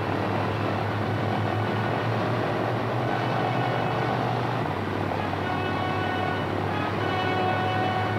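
Boeing 377 Stratocruiser's four Pratt & Whitney R-4360 radial piston engines and propellers at takeoff power during the takeoff roll: a steady drone with a low hum and a whine of higher tones above it.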